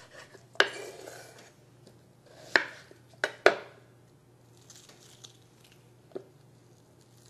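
About five sharp, unevenly spaced knocks of a kitchen knife on a wooden cutting board as a small onion is cut in half, with faint rustling as its papery skin is peeled off by hand.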